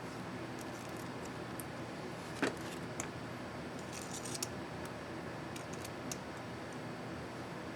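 Scattered light plastic clicks and snaps of an ASUS X551C laptop's space bar keycap being fitted onto its scissor mechanism and pressed, the loudest snap about two and a half seconds in, over a steady hiss.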